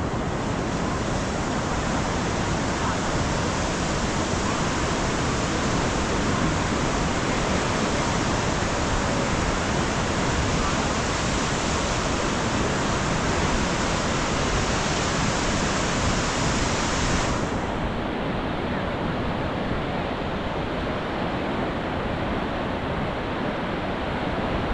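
Steady rush of sea surf breaking on a beach, an even wash of noise with no separate wave crashes standing out. The higher hiss drops away about seventeen seconds in.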